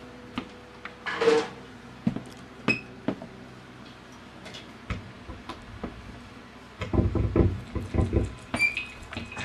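Scattered clicks, knocks and light clinks of gear and objects being handled in a small room, with a cluster of low, muffled thumps about seven seconds in.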